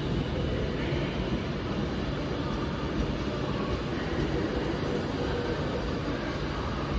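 Avanti West Coast passenger train rolling past alongside the platform: a steady rumble of wheels on the rails.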